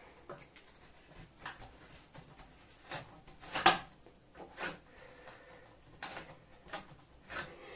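Packing tape being peeled and ripped off the end of a PVC shipping pipe: a series of short rasping rips, about eight, the loudest a little past the middle.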